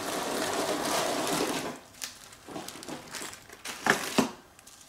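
Clear plastic zip bag crinkling as it is handled and opened, loudest for the first couple of seconds, then softer rustling and a few light clicks as rolls of Velcro are taken out of it.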